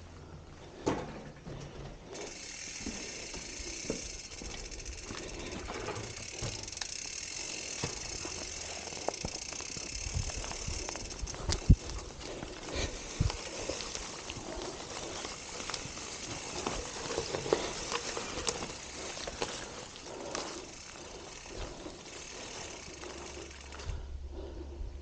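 A bicycle's freehub ticking as the bike is wheeled along, with scattered clicks and knocks. A steady high-pitched buzz sits under it for the first half and then fades.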